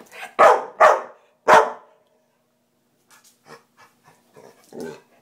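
Pit bull barking: three loud barks in quick succession in the first second and a half, then several softer, shorter barks near the end.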